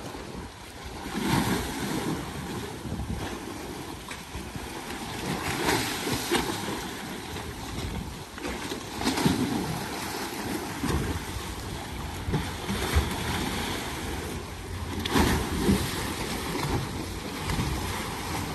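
Propeller wash churning and splashing at the stern of a large motor yacht as she manoeuvres off the quay, a steady rush of water that swells louder several times, with wind on the microphone.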